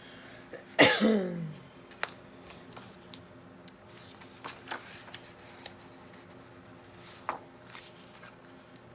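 A person clears her throat once, loudly, about a second in, the sound falling in pitch, followed by a few light taps and rustles of paper being handled.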